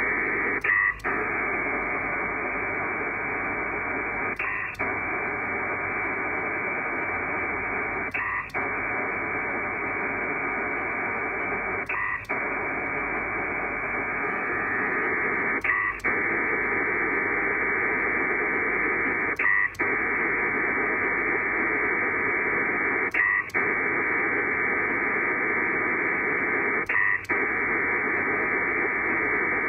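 Pactor 4 data signal from an SCS Dragon modem on an ICOM IC-7300, a steady rushing hiss broken about every 3.7 seconds by a brief gap with a short blip. This is the ARQ rhythm of long data packets, with a pause between them for the other station's acknowledgement.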